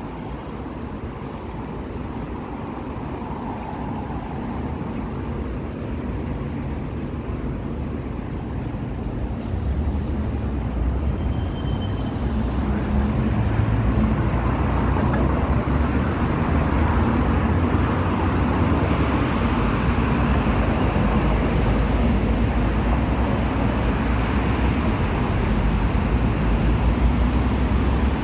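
Road traffic noise from cars and buses on a busy road alongside, a steady low rumble that grows louder about ten seconds in.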